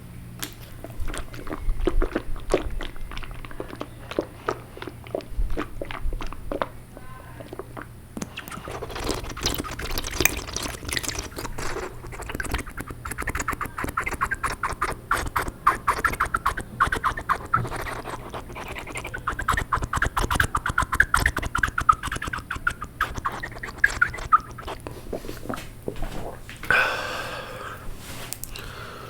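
Close-miked wet mouth sounds: tongue clicks and lip smacks, with stretches of quick, dense clicking in the middle.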